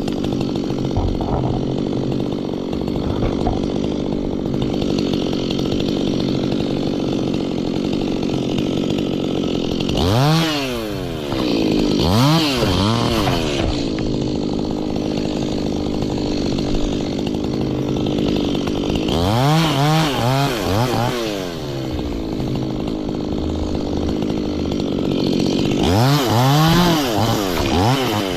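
Stihl two-stroke chainsaw running steadily and revved up and back down in quick blips about five times, as in cutting branches.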